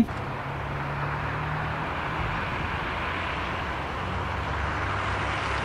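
Steady outdoor street ambience: a constant hiss of distant road traffic with a faint low hum beneath it.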